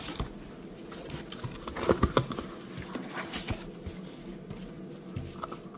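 Irregular light knocks and clicks, loudest in a cluster about two seconds in.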